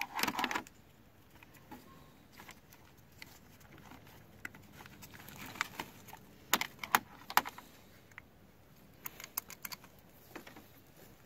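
Hands handling wiring and the plastic handlebar cover of a Honda Recon ATV: scattered light clicks and rustles, with a cluster of sharp clicks a little past halfway and a few more near the end.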